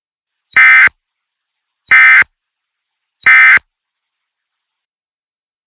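Emergency Alert System end-of-message data bursts: three short, loud, buzzy bursts of SAME digital tones, about a second and a half apart, that mark the end of the alert.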